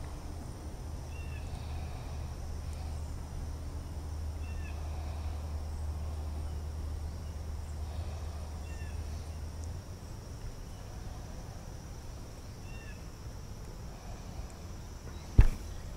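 A bird chirping, with short repeated calls every second or two, over a steady low hum that stops about ten seconds in. There is a single sharp knock near the end.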